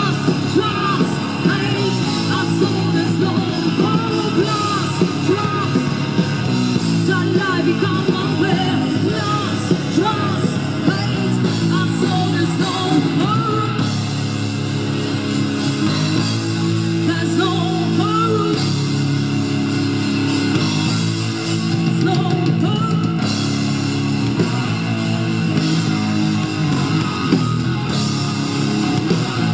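Live rock band playing a song with electric guitar, bass and drums, and a singer's vocals that are sung and at times shouted.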